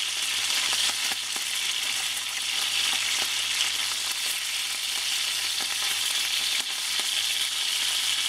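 Chum salmon steaks sizzling steadily as they fry in vegetable oil in a nonstick pan, with a few light clicks of a fork turning them.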